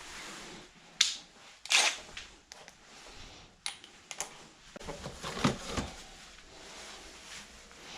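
Sharp clicks and light knocks of hand tools being handled while working at the steering wheel bolt, a few spaced apart, then a quicker run of them about five seconds in.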